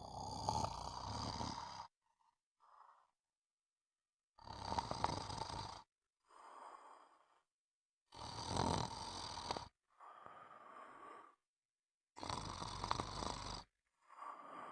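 Snoring: four loud snores about four seconds apart, each followed by a quieter breath.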